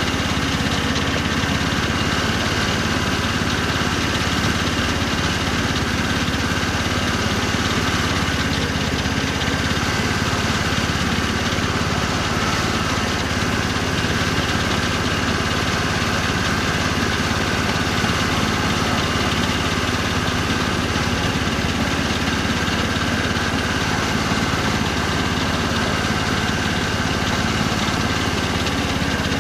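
Engine of a 7¼-inch gauge BR Class 03 outline miniature shunting locomotive running steadily as the loco travels along the track, heard close up from on board. The pitch stays even, with no revving or stops.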